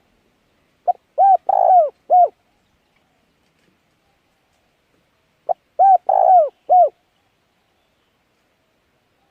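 A bird calling twice, a few seconds apart; each call is a phrase of a short first note followed by three longer arched notes, like a cooing phrase.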